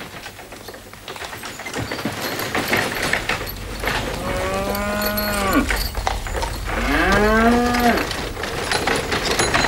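A cow mooing twice, each call a little over a second long and dropping in pitch at its end. Under it, a steady clatter of horses' hooves and a wooden hay wagon.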